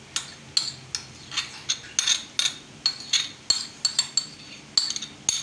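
A metal spoon scraping and clinking against a metal cooking pot while stirring thick grated carrot halwa. It gives sharp clinks roughly every half second, each with a short ring.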